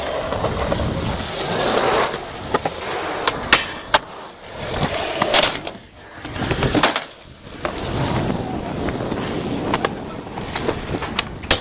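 Skateboard wheels rolling over concrete, broken by several sharp clacks of the board striking the ground and obstacles, grouped between about two and four seconds in and again near the end.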